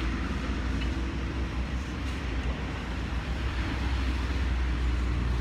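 Steady street-traffic rumble: a constant low drone with an even hiss over it.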